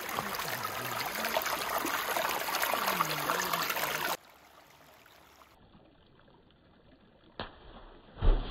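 Shallow forest stream running over rounded stones, a steady rush of water that cuts off suddenly about four seconds in. What follows is near quiet, broken by a sharp click and then a louder low thump near the end.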